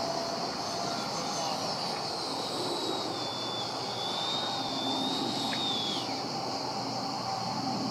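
Electric ducted fan of a Freewing JAS-39 Gripen RC jet, a nine-blade 80 mm fan driven by an inrunner motor, whining steadily in flight. Its pitch wavers and drops about six seconds in as the throttle changes.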